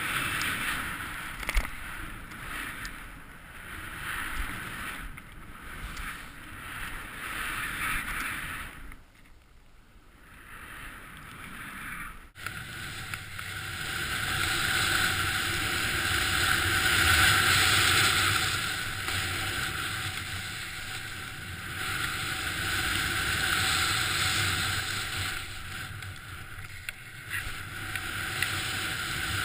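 Snowboard riding down through deep powder: a rushing hiss of snow under the board mixed with wind on the microphone, swelling and fading with the turns. It briefly goes quiet about a third of the way in and resumes after a sharp click.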